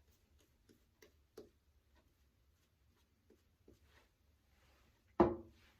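Faint scattered clicks of small objects being handled, then one sharp knock with a brief ring about five seconds in.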